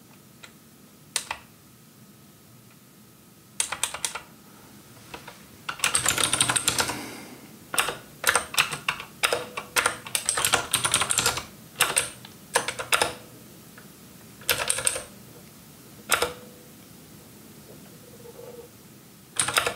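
Computer keyboard keys being pressed in quick runs of clicks with short pauses between, as when stepping through a text-mode configuration menu. A few lone keystrokes come first, then the runs grow denser and busier a few seconds in.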